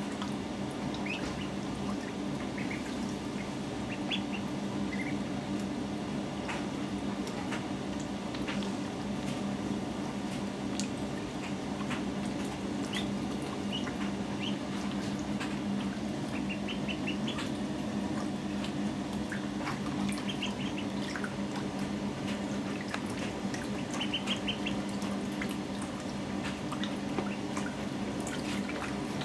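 White Indian Runner ducklings, two weeks old, peeping at intervals, short high peeps, some in quick runs of several, while they paddle and splash in shallow water. A steady low hum runs underneath.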